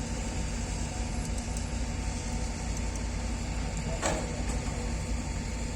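Diesel engine of heavy earthmoving machinery running steadily, with a single sharp click about four seconds in.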